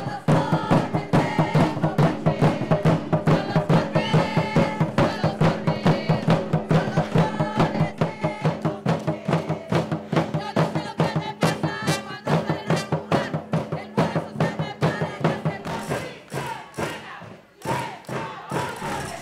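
Music with a fast, steady beat, dipping briefly near the end.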